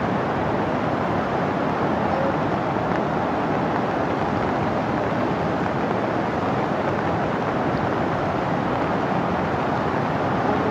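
A river in flood rushing past: a steady, unbroken rushing noise of fast muddy water.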